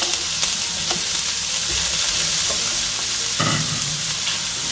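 Chopped onion sizzling steadily in hot olive oil in a frying pan, with scattered clicks of a plastic spatula scraping the bowl and stirring the pan, and one louder stroke of the spatula in the pan about three and a half seconds in.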